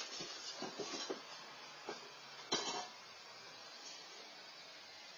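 A person falling down wooden porch steps: a few light knocks and thumps in the first second or so, then a short, louder scuffing noise about two and a half seconds in. Under it all is the steady hiss of a fixed outdoor camera's microphone.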